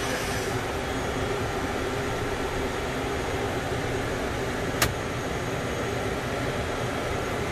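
Steady whir of the ATR 72-500's Pratt & Whitney PW127 turboprop engine and cockpit air conditioning, heard from inside the cockpit with engine 1 freshly started and running stabilised. A single sharp click about five seconds in.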